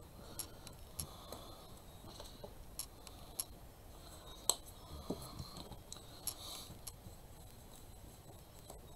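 Light, scattered clicks and taps as a paintbrush and a small paint cup are handled on a hard tabletop, over faint room hiss.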